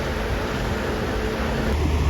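Road traffic: a vehicle engine running with a steady low rumble and hiss, the rumble growing stronger near the end.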